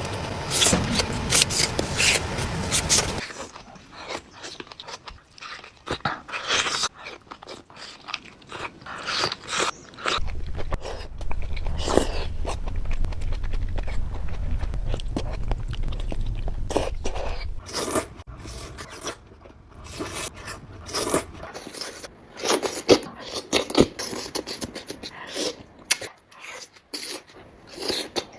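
Eating sounds of boiled onions being bitten and chewed, with crunching bites and irregular chewing clicks, in several short clips cut together. A low steady hum runs under the middle stretch.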